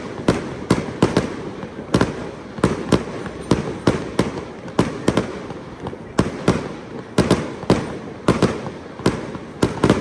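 Fireworks display: aerial shells bursting in a rapid, irregular series of sharp bangs, about two a second, each trailing a short echo.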